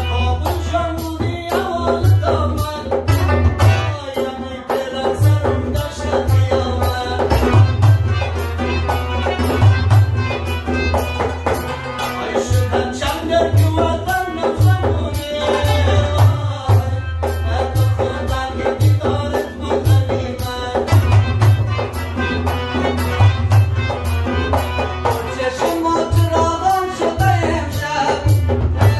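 Afghan folk song performed live: a male singer over harmonium, with tabla and rubab. A steady, repeating low drum stroke runs under the melody, and near the end a second man's voice takes up the singing.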